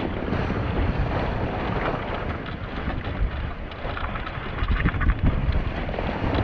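Wind buffeting the microphone over the steady rush of water along the hull of a sailboat under sail, with a few stronger gusts in the second half.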